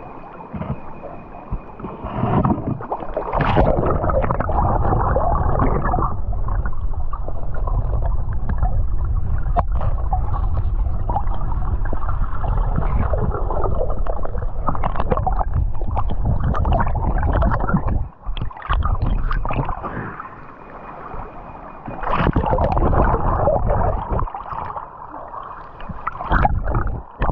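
Muffled underwater rumble and gurgling of stream water, heard through a submerged camera's housing as the diver moves among the rocks, with a couple of brief quieter lulls in the second half.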